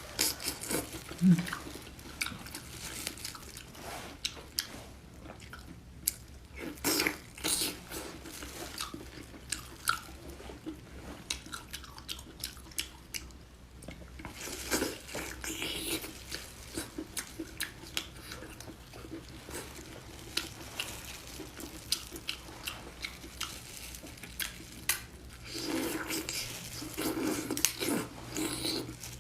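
A person chewing and biting into seafood: irregular wet mouth sounds and short clicks, coming in denser bouts a few times.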